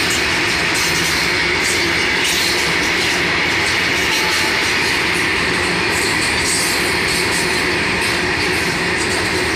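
Freight train of open wagons rolling past on the track: a steady, unbroken noise of steel wheels running on rail.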